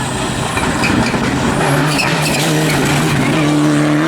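Rally car engine running at high revs under hard driving, with a noisy haze over the engine note. The engine note steps up in pitch about three seconds in.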